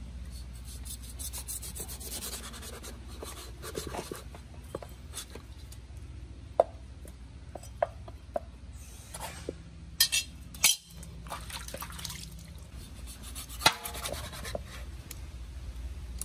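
A cleaver cutting shark meat into steaks on a chopping board: rubbing and scraping of the blade through the flesh and of the meat being handled, with several sharp knocks on the board, the loudest around ten and fourteen seconds in.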